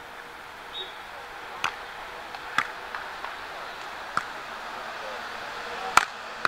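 Beach volleyball struck by hand again and again during a rally: about five sharp slaps spaced a second or more apart, the loudest near the end, over a steady outdoor hiss.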